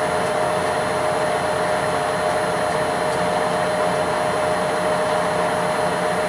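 A milling machine running steadily, its spindle turning an edge finder: a constant mid-pitched whine over an even mechanical hiss.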